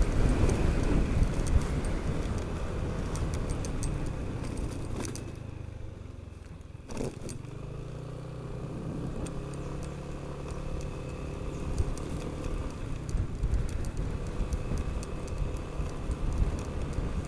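Yamaha NMAX scooter's single-cylinder engine running while ridden, with road and wind noise and light rattling clicks. The sound eases off for a couple of seconds midway, a single sharp click comes about seven seconds in, and then the engine's hum steadies.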